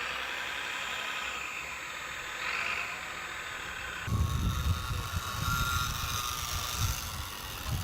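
Radio-controlled truck running with a steady, wavering whine; about four seconds in the sound changes abruptly to irregular low rumbling and hiss.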